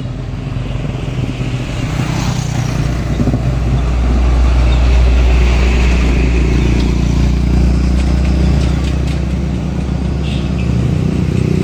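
Diesel engine of an Isuzu box truck passing close by, building to its loudest about five seconds in and fading as it pulls away, with another vehicle coming up near the end.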